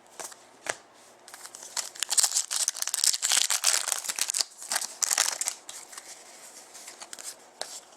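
Plastic trading-card pack wrapper crinkling and tearing as a pack of hockey cards is opened, in a run of quick crackly rustles that is heaviest in the middle, with a few light clicks of cards being handled.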